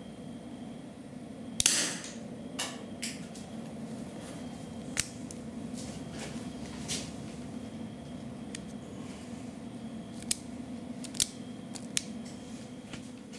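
Small metal clicks from a 1:3.5-scale miniature Mauser 98k rifle being handled. One sharp, louder snap comes about one and a half seconds in, followed by a handful of lighter clicks, over a steady low hum.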